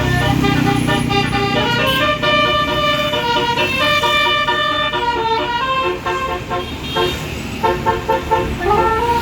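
Basuri telolet bus horn playing a melody: a run of held notes that step up and down in pitch, over a low engine rumble that is strongest in the first second.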